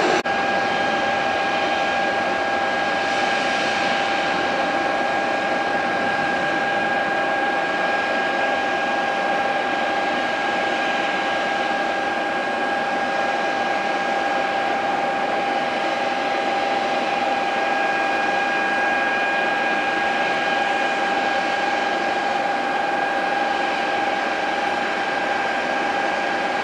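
Jet aircraft engine running steadily: a constant high whine over an even rushing roar, with no change in pitch or level.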